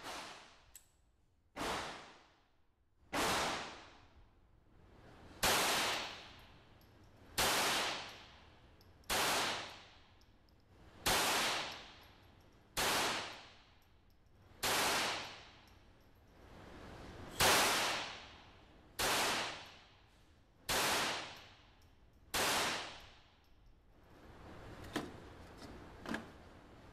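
A .22 calibre semi-automatic target pistol firing single shots at a steady slow pace, about twelve in all, each crack trailing off in the echo of an indoor range. Two light clicks follow near the end.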